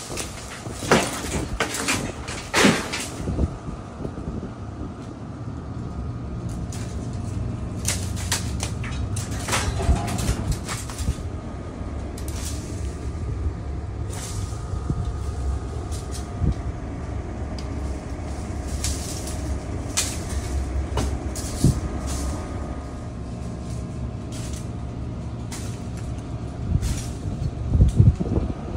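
A steady low machine hum, like an idling engine, with scattered sharp knocks and clicks, the loudest about a second in, at about three seconds, and near the end.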